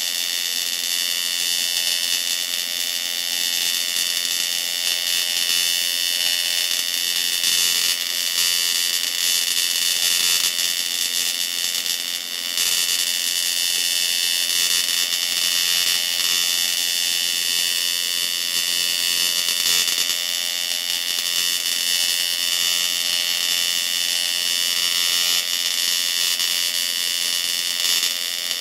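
AC TIG welding arc buzzing steadily while a cast iron part is brazed with silicon bronze filler rod.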